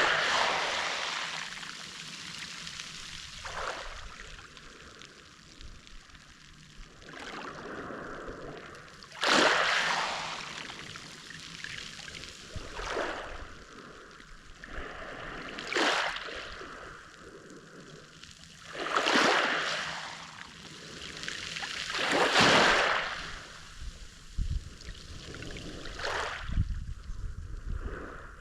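Small waves of the Mediterranean Sea washing up on the shore, each swelling and falling back, about every three to four seconds.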